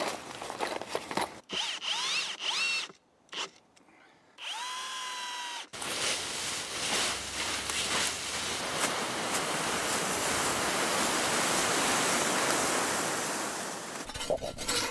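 A cordless drill run in several short spurts, its motor pitch rising as it spins up and holding a steady whine on the longest run. Then, about six seconds in, a steady scratchy rustle of a leaf rake dragging through dry leaves, which takes over until near the end.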